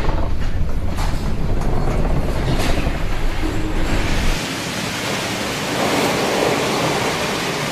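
Storm wind and heavy seas on a ship: a deep, buffeting rumble that gives way abruptly about four seconds in to a steady hiss of wind and spray.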